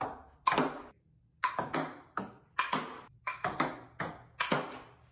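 Table tennis ball bouncing back and forth between a paddle, a wooden table top and an upright board wall: about a dozen quick, hollow pocks at an uneven pace, stopping shortly before the end.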